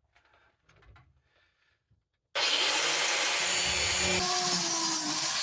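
A handheld power grinder switches on suddenly about two seconds in and runs steadily on the metal of an ice auger bit, a loud hiss with a shifting whine under it as the load changes. Faint handling sounds come before it.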